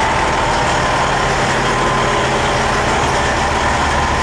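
Heavy diesel trucks idling: a loud, steady drone with a thin high whine held throughout.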